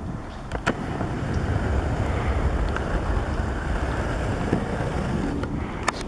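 Wind buffeting the microphone: a steady low rumble that grows stronger about a second in, with a few sharp clicks.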